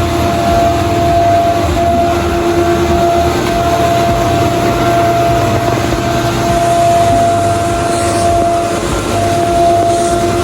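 A steady mechanical drone with a constant two-note hum over an even rushing noise, unchanging throughout.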